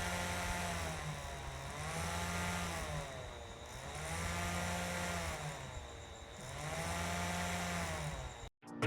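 Small 6-volt DC motor spinning the propeller of a homemade table fan. It makes a whine over a low hum, its pitch and loudness rising and falling together in smooth waves about every two and a half seconds. It cuts off suddenly near the end.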